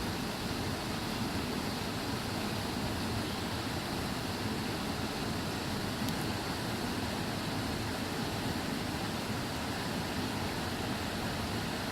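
Steady rushing of flowing river water, even and unbroken, with no distinct crackles.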